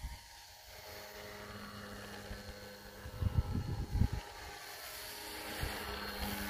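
RC autogyro's motor and propeller running in flight, a set of steady tones that grows louder as the model passes low near the end. About three to four seconds in, wind buffets the microphone.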